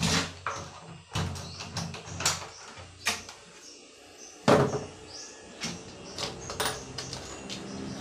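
Irregular clicks and knocks of a doorknob set and its latch being handled and fitted into a PVC door, with one louder knock about four and a half seconds in.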